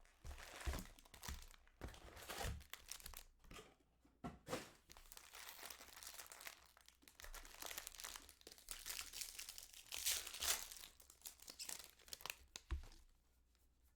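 Foil wrappers of trading-card packs being torn open and crinkled, in a run of irregular rustling and crackling that stops about a second before the end.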